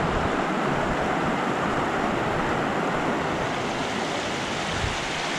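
Gairland Burn, a rocky hill stream, rushing and splashing over boulders in a steady, unbroken wash of water.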